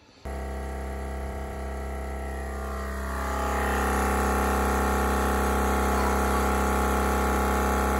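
A machine motor running steadily with a low hum and a stack of even tones. It starts abruptly and grows louder about three to four seconds in, then holds steady.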